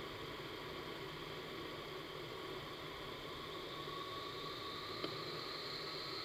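Steady rushing noise of a vertical wind tunnel's fans and airflow, with a faint high whine that grows a little louder in the second half. A single sharp click about five seconds in.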